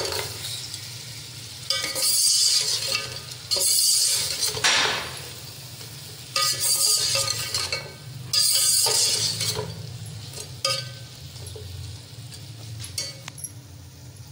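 Boiled meat pieces sizzling loudly in hot oil and fried onions in an aluminium pot as they are tipped in and stirred with a metal slotted spoon, the sizzle coming in about five bursts of a second or so, with the spoon clinking on the pot. This is the bhuna stage of browning the meat before the stock goes in.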